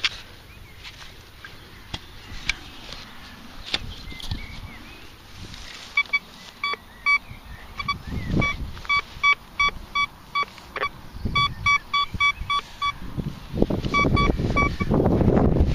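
Thracian metal detector giving short beeps of one pitch, several a second and in runs, as its coil is swept over the freshly dug hole: the signal of a deep target still in the ground. Light clicks of the spade in the soil come first, and a louder rustling handling noise rises near the end.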